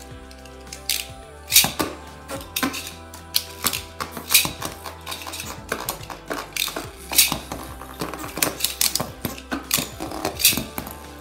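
Several Beyblade Burst spinning tops clashing in battle: rapid, irregular sharp clacks as the tops strike each other and the walls of the bin, with a few louder hits.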